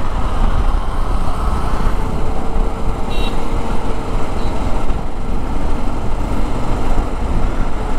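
Wind rushing over a helmet or bike-mounted microphone, with a motorcycle engine running steadily underneath while riding at city speed.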